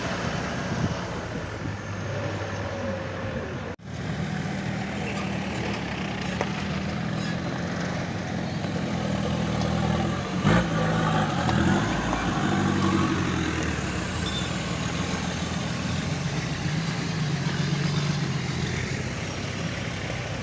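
Off-road 4x4 engines, a Mitsubishi Pajero and a Toyota Land Cruiser among them, running at low speed over rough ground in a run of short clips. The sound drops out for an instant about four seconds in, and there is a sharp knock about ten seconds in.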